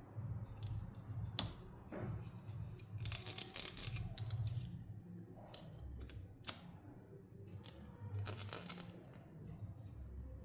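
Toy packaging being opened by hand: tearing and crinkling, with two longer bursts of tearing and scattered sharp clicks and snaps.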